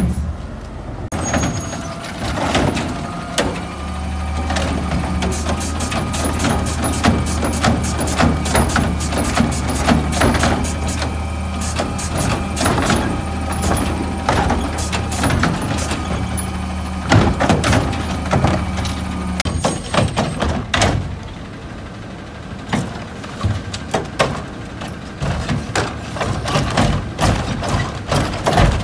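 Garbage truck at work: a steady low engine drone starts about four seconds in and stops about two-thirds of the way through, under many sharp metallic clanks and knocks.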